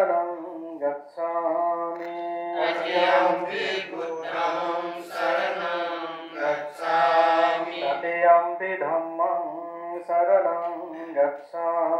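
Buddhist chanting in Pali: voices intoning long, held, melodic phrases, with short pauses for breath between them.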